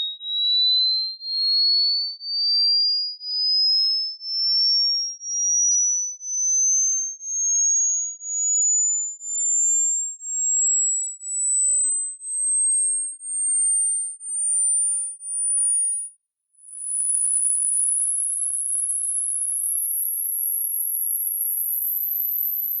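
Pure electronic test tone for a hearing test, beeping about once a second while its pitch climbs steadily from high to very high. About sixteen seconds in it breaks off briefly, then returns as a continuous tone that steps higher still, toward the upper limit of human hearing.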